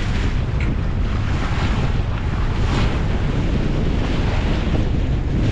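Waves rushing and splashing along a sailboat's hull as it sails through choppy sea, with wind buffeting the microphone. A steady loud rush with a heavy low rumble, the hiss of spray swelling now and then.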